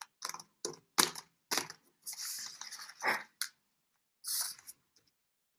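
Folded paper jumping frogs being pressed and flicked so they hop on a tabletop: a handful of light, sharp taps with two short stretches of paper rustling, about two and four seconds in.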